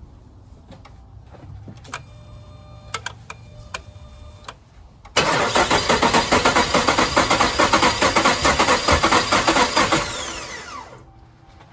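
Ram 1500's 5.7 Hemi V8 cranked over by the starter for about five seconds with a fast, even pulse, never catching, then the starter winds down with falling pitch. It is a crank-no-start: the cam sensor sends no signal, and the owner suspects a slack or broken timing chain. A few light clicks and short tones come before the cranking.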